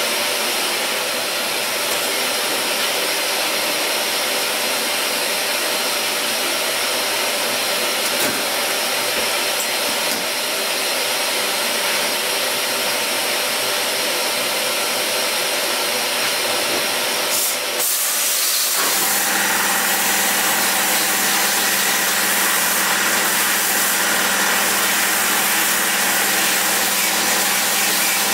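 Modified Harbor Freight dry blast cabinet in use with compressed air: a loud, steady rushing hiss of air and blasting media. About 18 seconds in the sound changes, picking up a steady hum and a higher whine.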